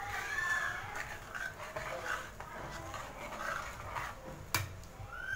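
Steel ladle stirring watery curry in a steel pot, with irregular sloshing and scraping. A single sharp metallic clink comes about four and a half seconds in.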